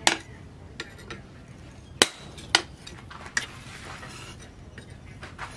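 Hammer blows on a handled hot-cut chisel held against red-hot steel, cutting through a cleaver blank on a stump anvil: sharp metallic clanks with a short ring, three loud and two fainter, at an uneven pace.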